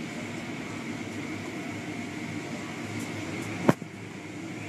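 Steady mechanical hum of automatic car wash machinery, with one sharp knock near the end.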